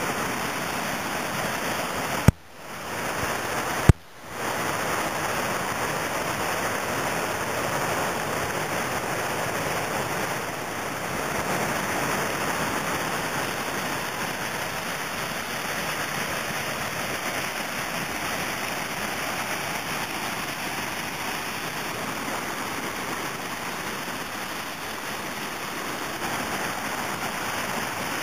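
Steady rushing of whitewater pouring over a river ledge drop. Two sharp clicks, each followed by a brief drop in level, come in the first four seconds.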